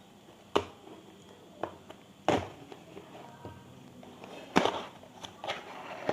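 Handling sounds from a small cardboard box being opened by hand: a handful of sharp clicks and knocks at irregular moments, two of them louder, then a denser scratchy rustle near the end.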